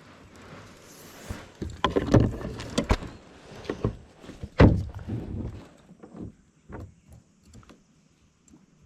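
Irregular knocks, thumps and rubbing in a small fishing boat, heard close up through a body-worn action camera. The loudest knocks come about two and four and a half seconds in, and they thin out near the end.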